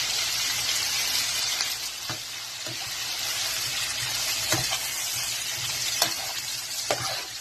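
Smoked sausage and onions sizzling steadily in oil in a frying pan, with a few sharp knocks of a utensil against the pan as it is stirred.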